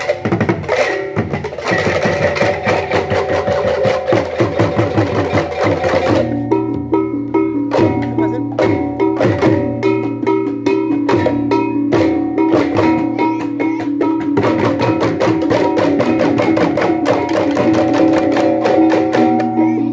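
Balinese tektekan ensemble playing: fast, dense interlocking clicking of bamboo tektekan slit drums, with steady pitched ringing tones joining in about six seconds in.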